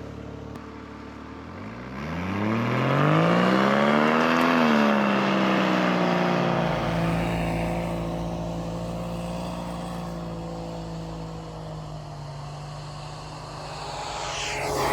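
Jeep engine revving up hard over about three seconds, then settling to a steady run with a rushing hiss, and climbing again near the end: the pulling vehicle yanking a stuck Jeep out of deep snow on a kinetic recovery rope.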